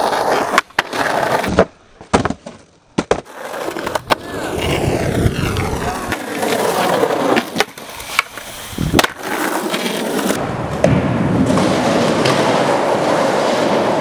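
Skateboard wheels rolling on concrete and asphalt, broken by sharp clacks of the board popping and landing, over several abrupt cuts.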